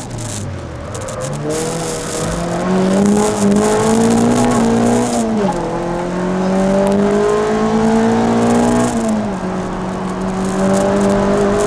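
Peugeot 306 Rallye's four-cylinder engine accelerating hard, heard from inside the cabin. The revs climb, drop sharply at a gear change about five seconds in, climb again and drop once more about nine seconds in.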